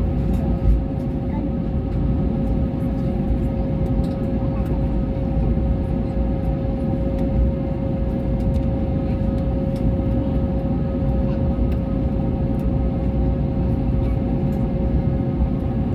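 Airliner cabin noise as the plane taxis: the engines and rolling wheels make a steady low rumble, with a steady whine held on one note above it.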